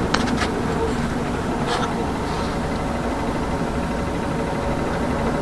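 Steady engine and running noise of a small city bus heard from inside the cabin, with a few short clicks near the start and one about two seconds in.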